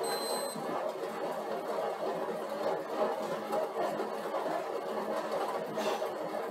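Stationary exercise bike whirring steadily as it is pedalled against a 160-watt load. A short high beep sounds at the very start.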